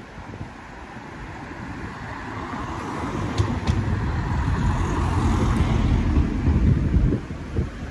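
A car driving past on the street, its engine and tyre noise swelling over several seconds and dropping off near the end.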